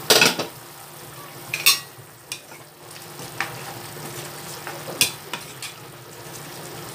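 A plastic spoon stirring chunks of apple, potato, carrot and pork in a simmering pot of curry, with scrapes and knocks against the coated pan over a steady bubbling sizzle. A loud clatter comes right at the start, then a handful of sharper knocks as the stirring goes on.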